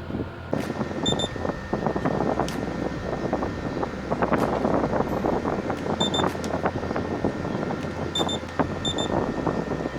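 Window-type air conditioner running on inverter power: a steady hum under a dense, uneven crackling rattle. Short high double beeps sound about a second in, around six seconds in, and twice more near the end.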